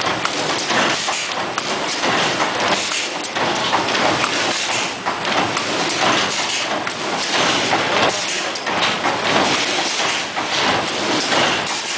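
Bubble kraft bag making machine running: a steady, loud mechanical clatter and hiss with repeated short knocks as the kraft paper web feeds through on its conveyor belts.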